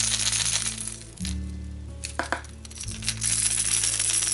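A hard plastic jerkbait, a copy of a Megabass, shaken by hand so the loose weight-transfer balls inside rattle; it eases off about a second in, with a single click near two seconds, and a lure is shaken and rattles again from about three seconds. Background music plays under it.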